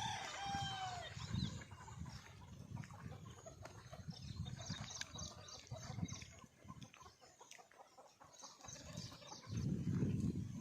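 Desi chickens calling and clucking, with a few loud curved squawks in the first second, over scattered scuffling and rustling. A louder low rumble starts near the end.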